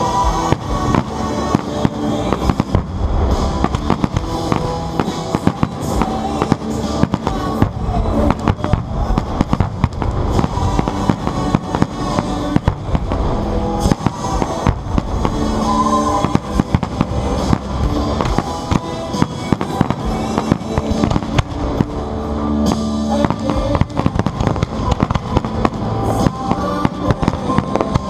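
Fireworks bursting in rapid, continuous bangs over loud music with a drum beat played for the display.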